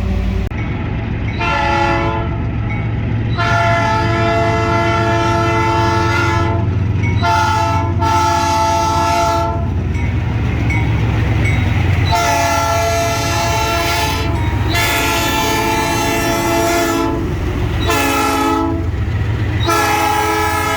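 Locomotive air horn sounding a chord of several notes in a series of long and short blasts, over the steady low rumble of the train.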